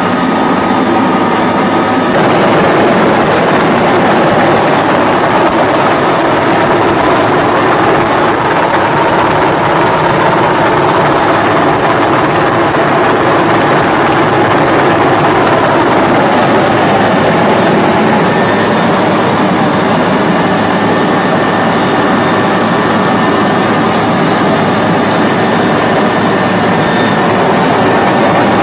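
Helicopter turbine and rotor noise heard from aboard, a loud, steady rush. It takes over about two seconds in from a hum with steady tones.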